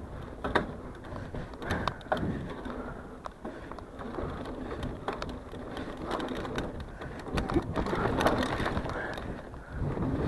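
Mountain bike ridden over dirt jumps, heard from a rider-mounted camera: tyres rolling on packed dirt with wind buffeting the microphone, and frequent clicks and rattles from the bike. It gets louder about eight seconds in.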